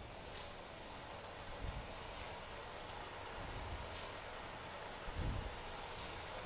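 Potato-dough snack pieces deep-frying in hot oil: a steady sizzle full of small crackling pops, with a few soft low thumps.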